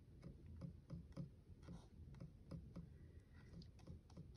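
Near silence: room tone with a few faint, irregular light ticks.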